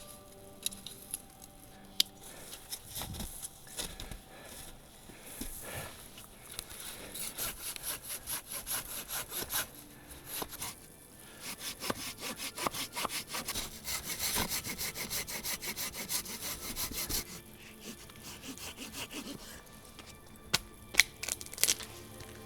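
Hand saw cutting through firewood in runs of quick back-and-forth strokes, from about a quarter of the way in until a few seconds before the end. A few sharp knocks come near the start and near the end.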